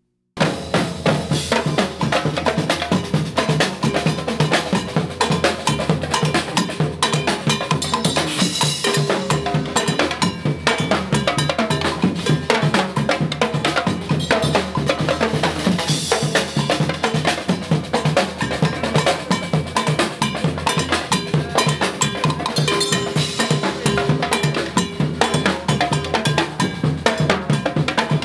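Percussion music: a fast, dense drum rhythm with sharp ringing strikes, starting abruptly just after the start.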